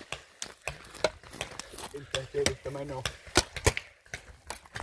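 Footsteps crunching on dry pine needles and twigs, with irregular sharp snaps and two louder cracks a little after the middle. A short shout about two seconds in.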